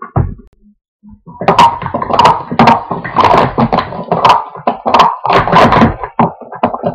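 Blue Speed Stacks plastic sport-stacking cups clacking rapidly against each other and the mat as two players stack and unstack them in a doubles run. A couple of short taps come first, then the fast, continuous clatter starts about a second and a half in.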